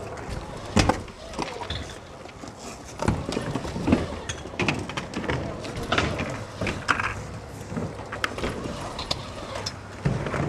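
BMX bike riding a vert ramp: tyres rolling on the ramp surface, with sharp knocks and clatter from the bike hitting the ramp, the loudest about a second in and again about three seconds in. Faint voices of onlookers underneath.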